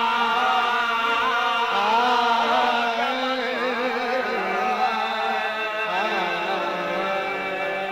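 Qawwali music: voices singing a wavering, ornamented melodic line over steady held harmonium notes.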